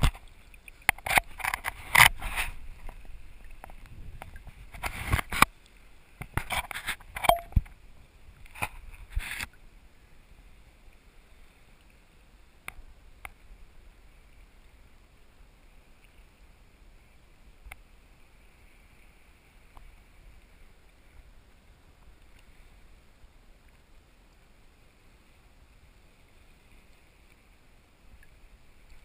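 Sea water splashing and sloshing against a GoPro in its waterproof housing at the surface: loud, irregular splashes for the first nine seconds or so, then a faint, steady wash of water with a few small clicks.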